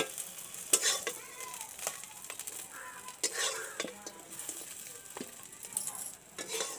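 Flat metal spatula scraping and scooping fried tangra fish out of a hot wok, in several separate scrapes over a light sizzle of frying oil.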